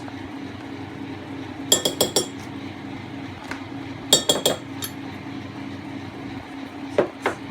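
Metal tablespoon clinking against a glass cup in two quick runs of ringing clinks, a couple of seconds apart, as butter is spooned in, with a couple of duller knocks near the end. A steady low hum sits underneath.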